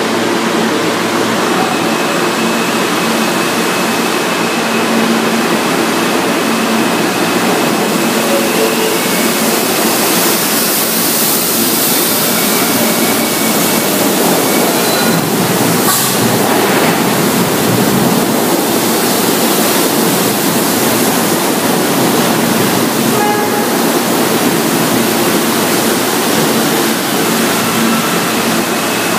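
R160 New York City subway train running along the platform: a steady, loud noise of steel wheels on the rails.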